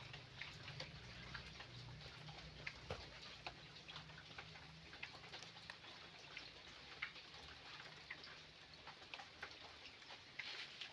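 Near silence: faint, irregular small ticks and drips scattered throughout over a low hum.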